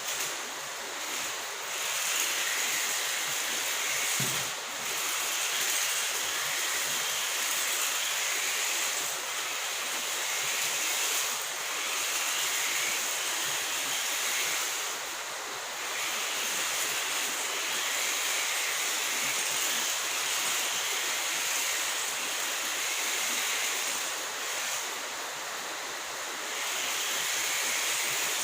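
Tiny 1:43-scale RC car's electric motor running with a high, steady hiss and whine that eases off briefly every few seconds.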